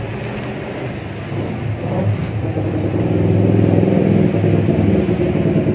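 A motor vehicle engine running steadily, growing louder about halfway through.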